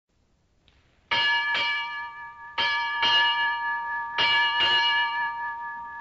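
Ship's bell struck six times in three pairs, the pairs about a second and a half apart, each stroke ringing on into the next.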